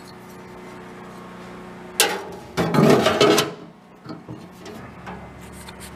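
A metal grate being set down into a metal ammo-can gasifier body and seated on its support rails. There is a sharp metallic clank about two seconds in, then about a second of rattling and scraping, then a few light clicks.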